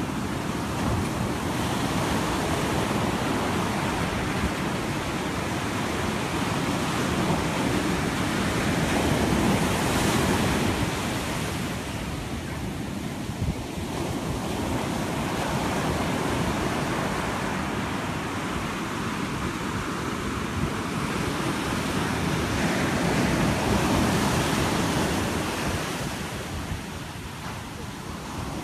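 Ocean surf breaking and washing up a sand beach: a continuous rush of water that swells and eases as successive waves come in.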